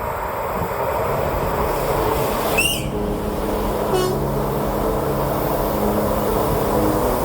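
Train horn sounding long, steady low notes on and off over a continuous noisy rumble, with a short high sweeping sound about two and a half seconds in.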